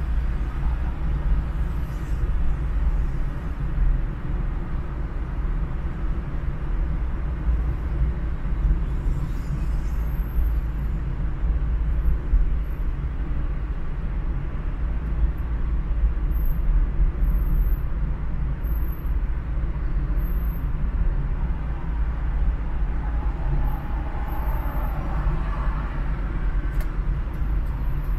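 Steady low rumble of a car driving through city traffic, engine and tyre noise without break, with a brief swell in the traffic noise about twenty-four seconds in.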